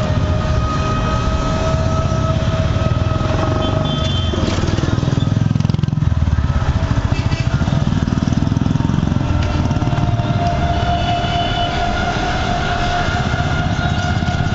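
Traffic noise heard from a moving road vehicle: a steady low engine rumble with a held, slowly drifting droning tone, and a motorcycle riding close alongside, heavier in the low rumble around the middle.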